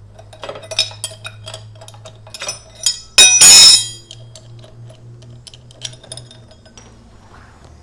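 Metal hand tools clinking and clattering: wrenches on a DID chain riveting tool being loosened and taken off a motorcycle chain, a run of light clicks with one loud clatter about three seconds in.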